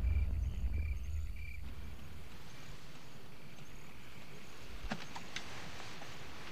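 Crickets chirping at night, short high chirps repeating every half second or so and fading after about three seconds, over a low rumble that dies away in the first two seconds. A few faint clicks come about five seconds in.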